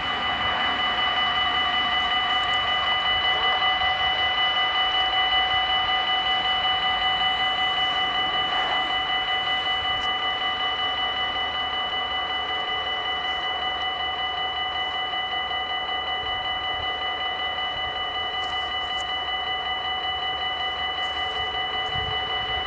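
The two bells of a Dutch automatic level crossing ringing steadily with a fast, even ding while the barriers come down, warning that a train is approaching.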